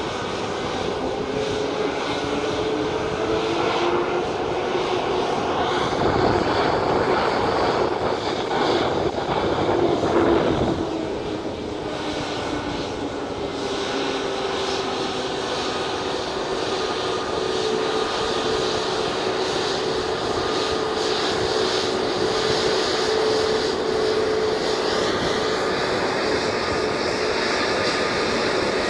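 Airbus A320neo's Pratt & Whitney PW1100G geared turbofan engines running at taxi power with a steady whine. The engine noise swells louder for a few seconds in the middle as the jet taxis past.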